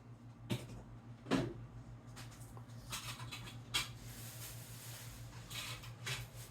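A cat sneezing several times in short, sharp bursts, the loudest about a second in, over a low steady hum.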